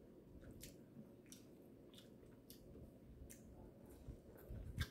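Faint chewing with soft, wet mouth clicks here and there while eating.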